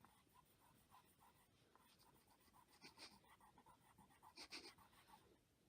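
Near silence with faint soft rubbing and scraping sounds, slightly louder twice, about three and four and a half seconds in.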